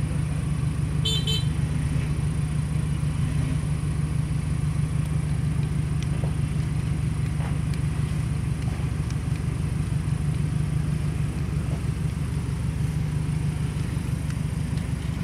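Vehicle engine running steadily as a low, even drone while driving along a dirt track, with a short high beep about a second in.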